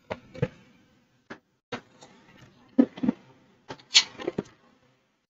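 Several faint, short clicks and soft brief noises at irregular intervals, with silent gaps between them.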